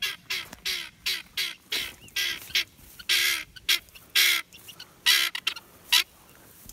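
Guinea fowl calling: a rapid, irregular string of short, harsh calls, about three a second, with a few longer calls in the middle.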